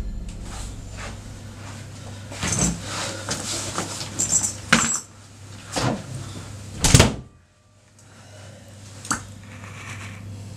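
A handful of separate sharp knocks and clatters, the loudest about seven seconds in, over a low steady hum.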